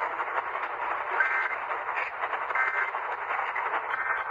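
Three short squawks of Emergency Alert System end-of-message data tones, about a second and a half apart, over a steady radio hiss. They mark the end of the tornado warning broadcast.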